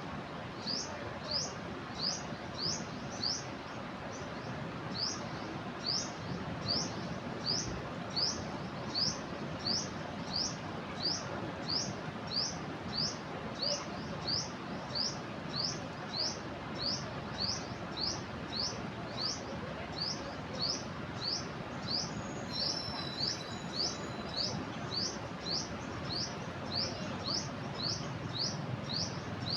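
A small bird calling over and over, a short rising high note about twice a second, over a steady rush of floodwater; a second bird adds a brief trill about two-thirds of the way through.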